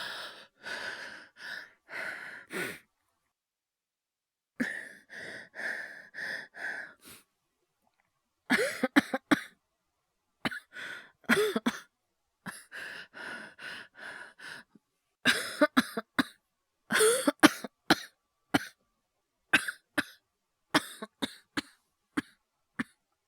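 A man's acted coughing fit: quick, short breaths over the first few seconds and again after a pause, then from about eight seconds in, clusters of sharp coughs, some voiced, with short gasping breaths between them.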